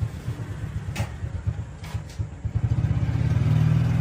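Small motorcycle engine running with an uneven, pulsing beat, then revving up and holding higher about two and a half seconds in. A sharp click is heard about a second in.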